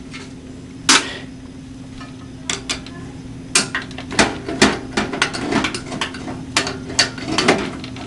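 Metal clicks and knocks as screws are taken out of a hard drive in a steel computer case's drive bay: a single sharp knock about a second in, then an irregular run of clattering knocks and rattles from about midway on as the loosened drive and screw shift and drop in the bay. A low steady hum runs underneath.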